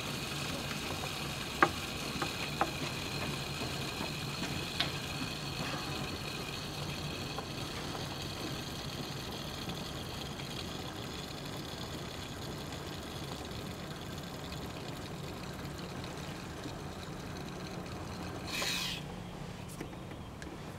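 Coolant being drawn under vacuum through the refill tool's hose and valve into a Porsche 987 Cayman's evacuated cooling system: a steady hiss of flowing liquid over a low hum, the hiss weakening gradually as the vacuum is used up. There are a few light clicks, and a short louder rustle near the end.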